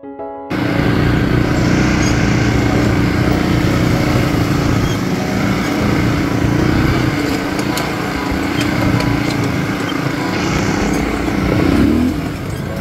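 Off-road buggy engine running steadily with rough-road and wind noise, starting abruptly about half a second in.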